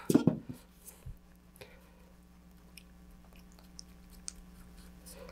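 Wooden stir stick mixing epoxy in a small cup: faint, scattered scraping and sticky ticks, over a steady low hum.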